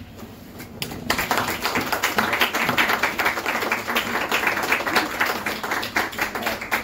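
Audience applauding, the clapping starting about a second in.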